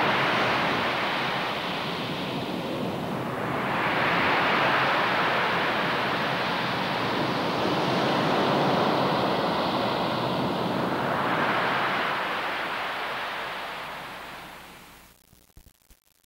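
Rushing, surf-like noise that swells and ebbs in slow waves, then fades out over the last few seconds.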